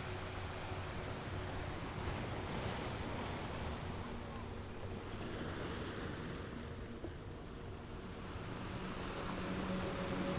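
Ocean surf: waves washing in, the rush of water swelling and fading. Faint sustained low tones sound underneath, growing stronger near the end.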